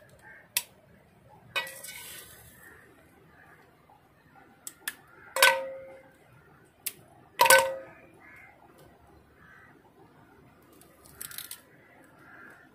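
Raw crabs being broken apart and cleaned against metal cookware: a handful of sharp knocks and clinks, two louder ones about five and a half and seven and a half seconds in, each with a short metallic ring, and softer crackles in between.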